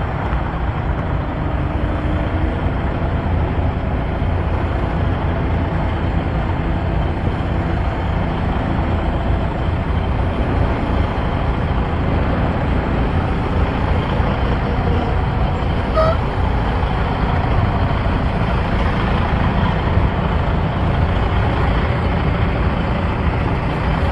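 Freightliner Cascadia semi truck's diesel engine running at low idle as the tractor-trailer backs slowly, a steady low rumble throughout.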